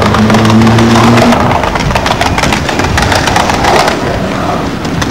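Skateboard wheels rolling over skate park ramps and concrete, a rough steady noise with many small clicks and knocks from the board.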